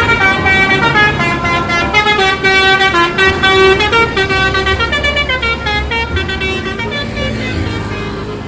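Bus 'telolet' musical horn, several horn trumpets sounding together and stepping through a quick multi-note tune, over a low engine rumble. It eases off slightly near the end.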